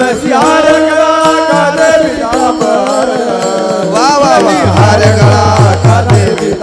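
Marathi kirtan devotional music: a long held melody with ornamented turns of pitch, joined about two-thirds of the way through by a drum's deep strokes at a quick, even beat.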